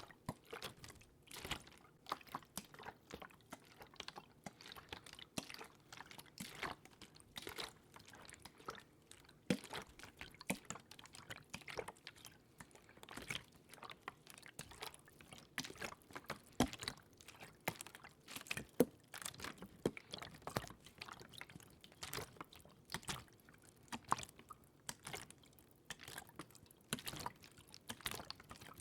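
Close-miked water: an irregular run of small wet clicks, drips and trickles.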